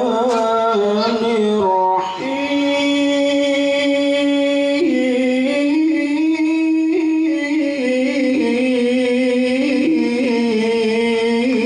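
A man's voice in melodic Quran recitation (tilawah), reciting into a microphone. A phrase ends about two seconds in, then one long drawn-out line follows, stepping up and down in pitch.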